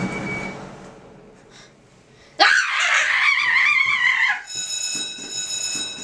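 A person screaming: a sudden loud cry about two and a half seconds in, lasting about two seconds with a wavering pitch. A noisy burst fades over the first second, and a steady high ringing tone follows the scream.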